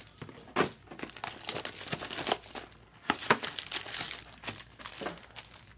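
Plastic packaging being handled and crinkled by hand: irregular rustles and small crackling clicks.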